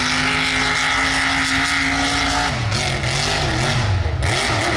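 Mud truck engine at high revs, held steady for about two and a half seconds, then the revs rise and fall repeatedly.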